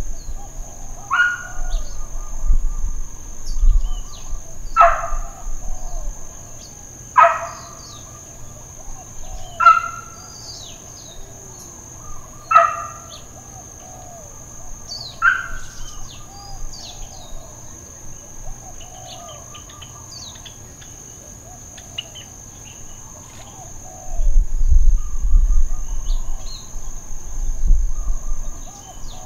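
A dog barking in the distance: six single barks about two and a half seconds apart, then it stops about halfway through. Underneath are a steady high insect drone and small bird chirps, and near the end a low rumble is the loudest thing.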